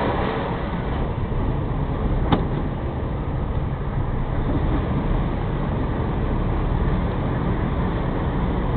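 Truck's diesel engine running at low speed, a steady low rumble heard from inside the cab, with a single sharp click about two seconds in.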